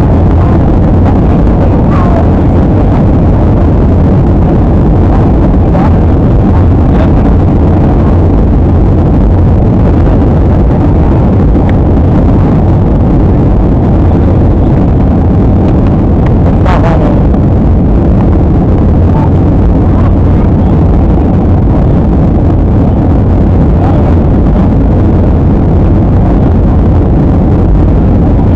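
Steady, loud jet airliner cabin noise in flight: the even roar of the engines and airflow past the fuselage, heavy in the low end, with faint brief fragments of voices from the cabin now and then.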